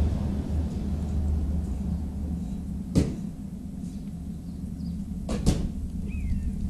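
Steady low rumble with a sharp knock about three seconds in and a quick double knock about five and a half seconds in.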